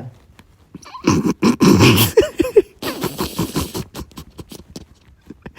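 A man snoring: a loud, rough rattling snore on the in-breath about a second in, a brief squeak, then a hissing out-breath, followed by a few faint clicks.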